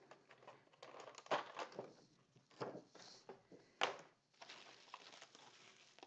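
Bubble wrap crinkling and rustling as it is peeled off a clear plastic keycap tray, in irregular crackles with a few sharper clicks.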